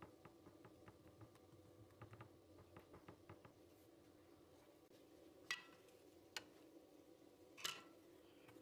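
Faint soft ticks of fingers pressing the crimped edges of filled dough against a wooden board, then three sharper clinks of a nonstick frying pan, each with a short ring, the last the loudest.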